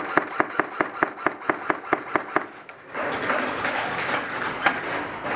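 Airsoft gun firing a rapid, even string of shots, about five a second, for over two seconds. Then a steady rushing noise with a few more scattered shots.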